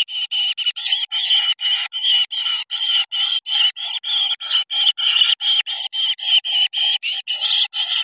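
Kingfisher nestlings in a burrow nest calling harshly in a fast, unbroken series, about three to four calls a second.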